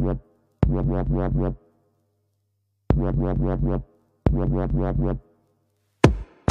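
Electronic dance music with a dubstep feel: heavy synth phrases of about a second each, each cut off abruptly, with short silent gaps between them. A denser, noisier burst comes in near the end.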